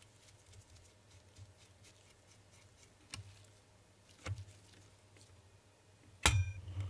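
Light metal clicks and taps as small parts are handled on a 1970s Citizen wall clock's movement, with two sharper clicks midway. About six seconds in comes a loud metallic clink with a brief ring as a screwdriver meets the movement's steel plate.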